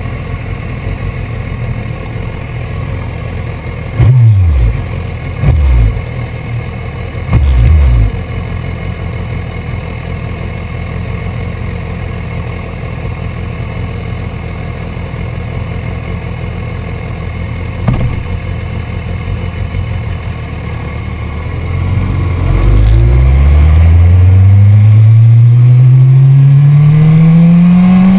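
BMW S1000RR's 999 cc inline-four idling through a loud aftermarket Akrapovic exhaust, blipped three quick times between about four and eight seconds in, each a fast rise and fall in pitch. Near the end it pulls away in first gear, its note climbing steadily.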